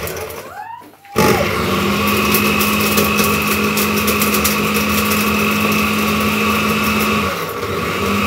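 Small electric kitchen blender motor running steadily with a high whine. It stops for a moment about a second in, then starts again, and dips briefly near the end.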